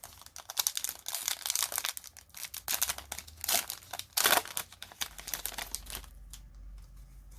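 A Yu-Gi-Oh booster pack's wrapper crinkled and torn open by hand, an irregular rustling that is loudest around four seconds in and stops at about six seconds.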